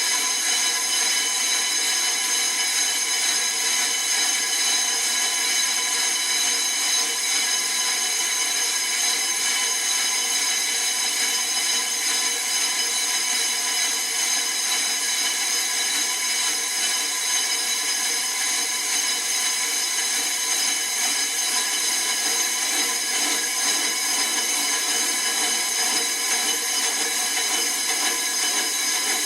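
Brake disc lathe machining a 2017 Kia Sportage brake rotor, the cutting tool giving a steady, high-pitched metallic squeal made of several tones at once.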